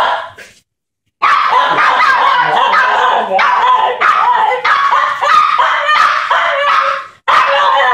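Small dog yelping and whining excitedly: two short barks, a pause, then a long unbroken run of high, wavering yips and whines that breaks off briefly near the end and starts again.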